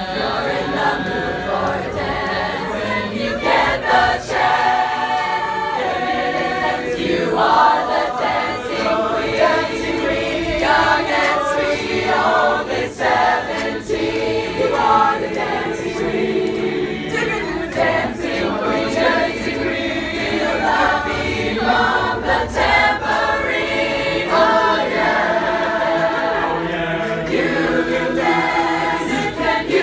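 A choir singing a cappella, several voices in harmony without accompaniment.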